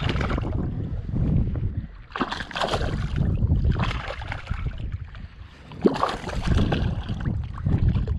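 Water splashing in several short bursts as a trout is handled and thrashes at the surface in knee-deep bay water, over a steady low rumble of wind on the microphone. One sharp click about six seconds in.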